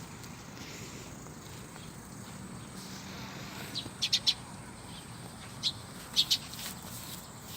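Bird chirping outdoors: short, high chirps, a quick run of three about four seconds in and a pair a couple of seconds later, over a faint steady background.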